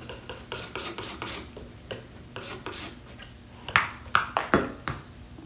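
Metal palette knife scraping and tapping on a paper palette as oil paint is mixed, in quick short strokes, with a few sharper clicks about four seconds in.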